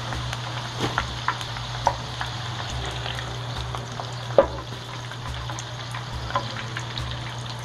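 French fries frying in a shallow pan of hot oil, a steady bubbling sizzle, as they are scooped out with a plastic slotted skimmer. Scattered sharp pops and taps run through it, the loudest about four and a half seconds in, over a steady low hum.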